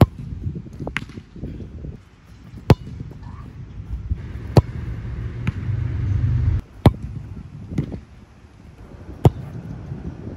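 A soccer ball being kicked hard, again and again: five sharp strikes about two seconds apart, with fainter knocks between them. Wind rumbles on the microphone under the strikes and swells in the middle.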